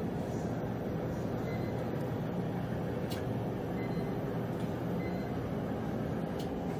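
Automated boat loader running, heard within steady factory machine noise: a low, even hum with a few faint clicks.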